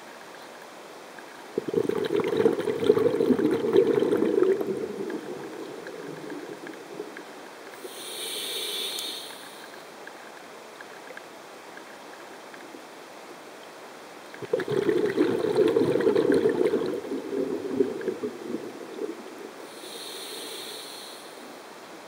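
A scuba diver breathing through a regulator, heard underwater: two long bubbling exhalations, each followed a few seconds later by a shorter hiss of inhalation.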